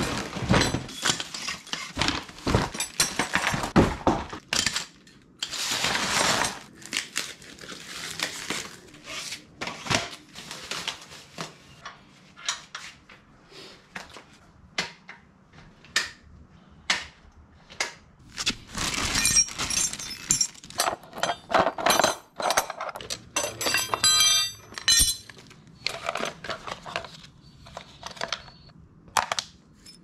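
Knocks, clicks and clatter of the metal tubes, clamp and plastic tool tray of a bike repair stand being handled and assembled, with rustling of its packaging in between and a quick rattle of clicks about three-quarters through.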